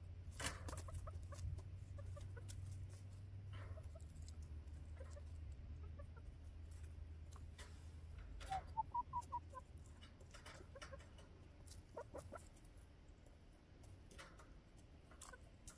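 Young backyard hens clucking softly close to the microphone, with a quick run of about five clucks a little past the middle, among scattered sharp clicks.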